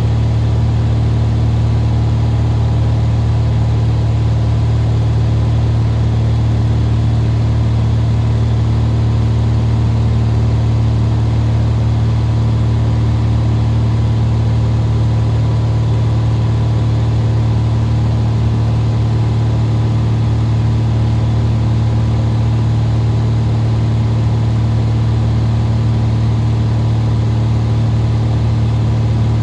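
Cessna retractable-gear single-engine plane's piston engine and propeller running steadily in cruise, a loud constant drone heard from inside the cabin.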